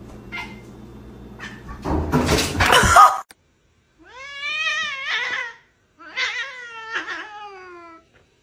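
A cat yowling: two long, drawn-out wailing calls, the second sliding down in pitch. Before them comes a short harsh noisy burst over a low hum, then a sudden cut to silence.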